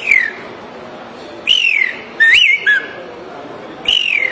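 A man whistling an imitation of a common pauraque (curiango) call: clear falling whistles, with a quick rising-and-falling note and a short low note after the second.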